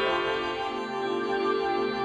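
Soft new-age style intro music: sustained synthesizer tones with slowly swelling notes.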